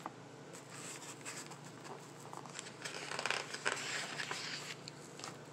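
Paper pages of a printed user's manual rustling as they are handled and turned, loudest about three seconds in.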